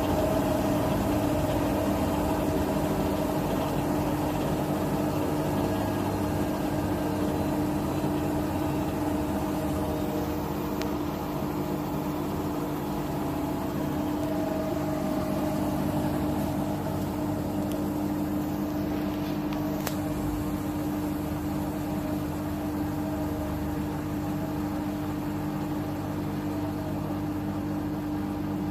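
Bosch Serie 6 washing machine (WAT28490NL) spinning its drum on a spin-only cycle, the load pressed against the drum wall: a steady motor hum with drum rush that holds a constant pitch.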